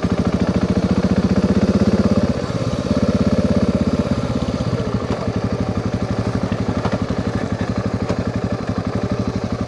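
Dual-sport motorcycle engine running at low road speed, an even, fast pulsing, a little louder in the first two seconds and easing off from about four seconds in.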